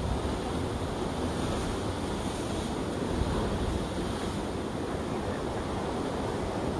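Sea surf washing against the foot of a rocky cliff, a steady rushing with wind buffeting the microphone.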